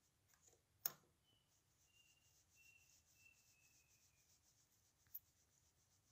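Near silence with two computer mouse clicks, a sharp one about a second in and a softer one about five seconds in.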